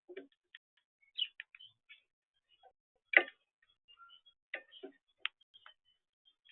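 Birds making short chirps and sharp ticking calls, irregularly spaced, with one louder click about three seconds in.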